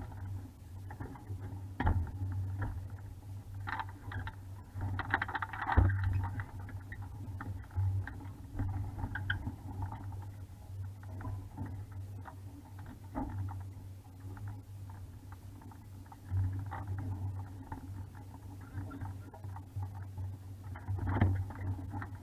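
420 sailing dinghy in a calm: irregular knocks and rattles of the hull and fittings over a steady low hum, with a busier clatter about five seconds in.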